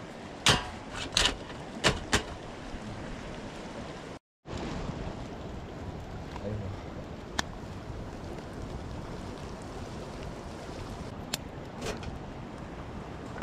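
Steady rushing of a flowing river, with four sharp knocks or clicks in the first couple of seconds and a few single clicks later. The sound drops out completely for a moment about four seconds in.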